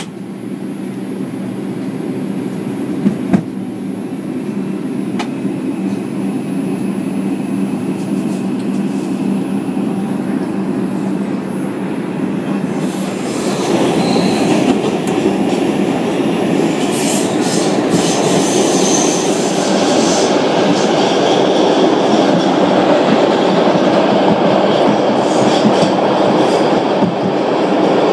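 New York City Subway 4 train heard from inside a car as it pulls out of a station and speeds up into the tunnel. A steady hum gives way, about halfway through, to a louder, growing rumble and clatter of wheels on rail, with a couple of brief high wheel squeals.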